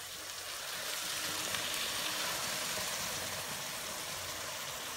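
Sprite soda poured into a hot wok of sautéed ground beef and hotdog, sizzling and fizzing as it hits the pan. The hiss swells about a second in and then holds steady.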